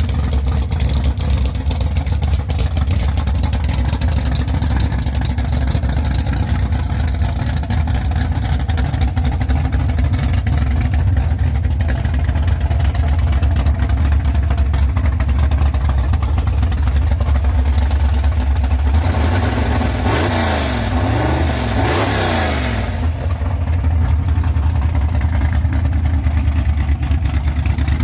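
A gasser hot rod's engine running loud and steady with a deep sound, and a brief rise and fall in pitch about twenty seconds in.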